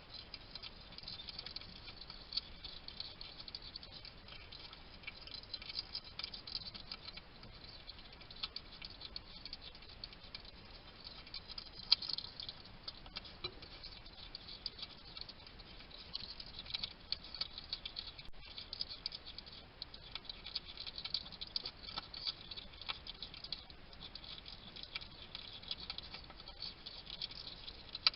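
Wild European hedgehog eating: rapid, irregular crunching and smacking clicks as it chews its food, with one sharper click about twelve seconds in.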